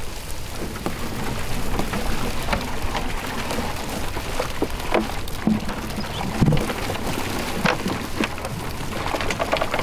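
A cast net full of live pilchards being emptied into a boat's live well: water streaming and dripping off the netting and many small baitfish flipping and splashing, a dense, irregular patter of small splashes and taps.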